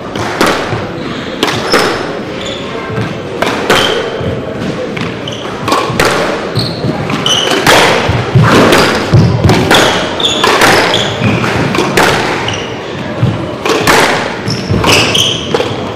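Squash balls being struck and hitting court walls in a large hall: sharp, echoing thuds at an irregular pace of roughly one a second, with crowd chatter underneath.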